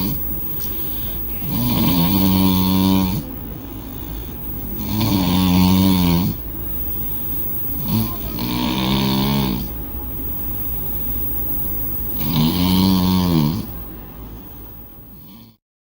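A sleeping person snoring loudly: four long, pitched snores, each about a second and a half, coming roughly every three and a half seconds. The sound cuts off abruptly just before the end.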